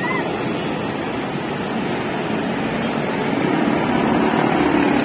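Steady noise of dense road traffic, mostly motorcycle engines with cars and vans, passing on a busy multi-lane road.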